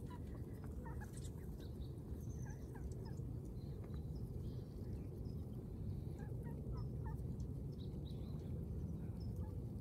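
Mallard ducks giving short, soft calls on and off as they forage, over a steady low rumble.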